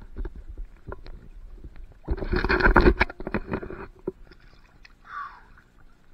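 Water splashing and sloshing around a diver's gloved hands at the pond surface: scattered small splashes and knocks, with one loud rush of splashing about two seconds in that lasts about a second.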